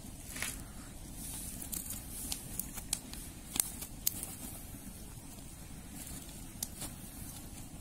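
Wood-fire embers crackling, with irregular sharp pops and ticks, under corn cobs and eggplants roasting on the coals. A low steady rumble runs underneath.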